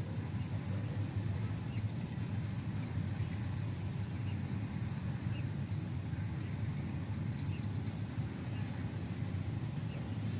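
Steady low rumble of outdoor background noise, with faint short chirps now and then.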